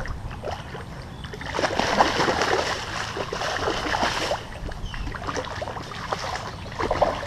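A hooked carp thrashing at the surface in shallow water. A burst of heavy splashing starts about one and a half seconds in and lasts about three seconds, then smaller splashes follow and flare up again near the end.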